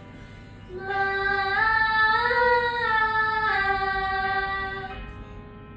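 Female singing of a vocal warm-up exercise: one held vowel that steps up a few notes of a scale and back down, for about four seconds.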